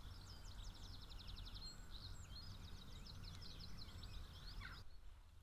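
A small songbird singing two phrases of rapid, high trilling notes, with faint outdoor rumble underneath; the song stops shortly before the end.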